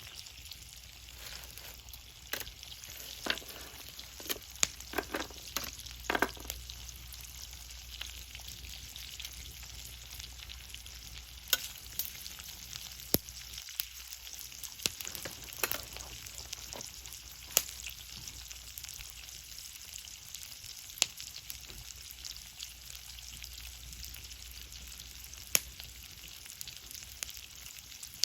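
Campfire burning and crackling, with irregular sharp pops over a steady soft hiss and a quick run of pops and knocks a few seconds in.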